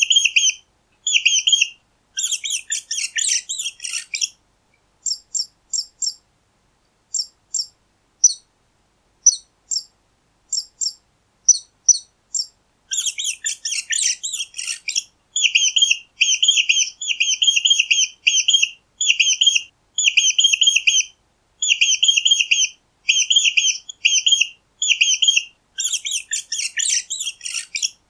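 Mice squeaking: runs of short, high-pitched squeaks. Three bursts of dense, rapid squeaking come about two seconds in, mid-way and near the end, with sparse single squeaks in between.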